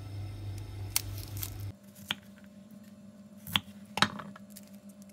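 Light taps and clicks of Brussels sprout halves and peeled leaves being handled and set down on a wooden cutting board, a few scattered and the two loudest a little over halfway in, over a low steady hum.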